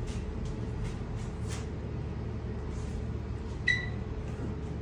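Steady low hum of a window-type room air conditioner, with a few faint clicks and one brief high-pitched squeak about three and a half seconds in.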